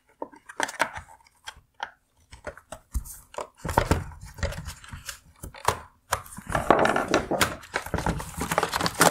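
A screwdriver prying at a plastic clip on a headlight housing: irregular clicks and scraping of metal on plastic. A denser stretch of scraping and rustling follows near the end as the bracket and wire harness are worked loose.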